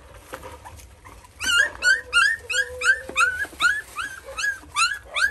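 A puppy yelping over and over, about three high-pitched yelps a second, each rising and then dropping in pitch, starting about a second and a half in.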